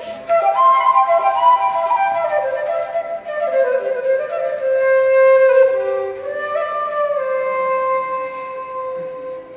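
Flute music: a slow melody of long held notes that fades out toward the end.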